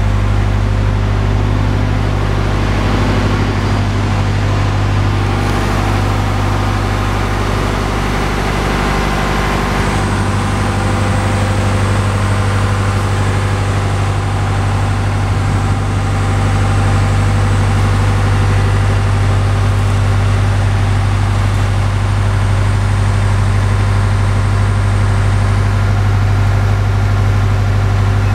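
Boart Longyear DB520 drill rig's engine running steadily with a deep, constant hum; its note shifts slightly about ten seconds in.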